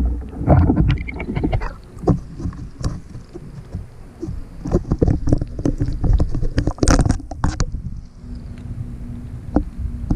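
Wire crab trap knocking and scraping irregularly against a concrete seawall as it is hauled up out of the water, over a low rumble of handling on the camera housing.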